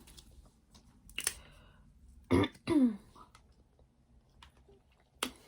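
A woman clearing her throat: two short voiced bursts with falling pitch a little over two seconds in, with a faint click before and another near the end.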